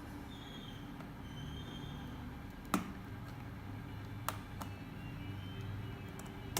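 Two sharp plastic clicks about a second and a half apart, with a fainter one just after the second, as a small tool works the plastic retaining latches of an Acer Aspire 5738 laptop keyboard, over a low steady hum.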